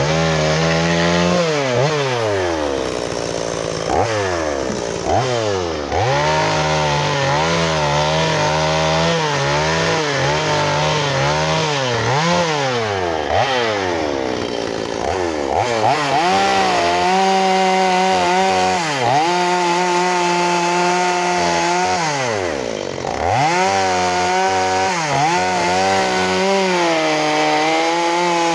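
Gas chainsaw revving up and down as it cuts into a log, carving out a chain link. Several times the engine drops back toward idle between cuts, then revs up again and holds high speed under load.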